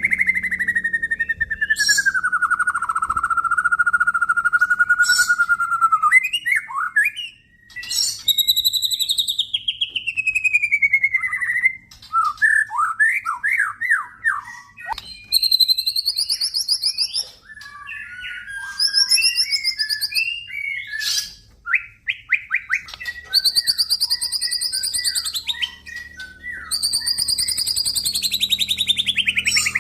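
Male white-rumped shama (murai batu) singing: long, clear whistled phrases with a fine rapid trill, some gliding down in pitch, alternating with quick runs of short, varied chirps.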